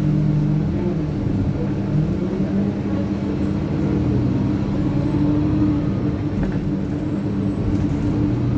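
Bus engine and running gear heard from inside the passenger saloon: a steady low drone whose pitch shifts a little as the bus moves, with road rumble underneath.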